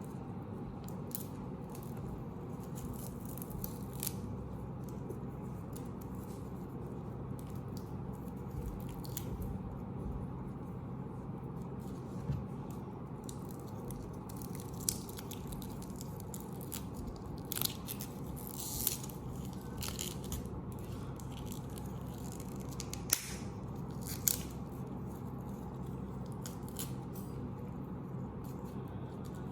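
Hands unwrapping a shipping parcel: scattered rustling, crinkling and tearing of plastic wrap and tape, with a few sharper clicks, over a steady low hum.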